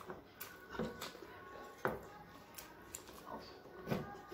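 Two people eating rice and fish with their hands: chewing and lip-smacking, heard as scattered soft clicks and smacks, a few slightly louder about two and four seconds in.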